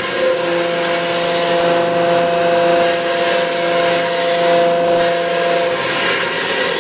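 Incremental sheet metal forming: a CNC machine's round-tipped stylus tool running around the metal sheet, giving a steady squeal of several tones over a scraping hiss. The hiss drops out briefly a couple of times.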